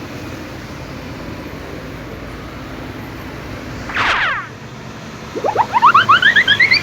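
Cartoon sound effects over a steady hiss: a single falling 'boing' sweep about four seconds in, then a quick run of short rising chirps that climb higher and higher in pitch near the end.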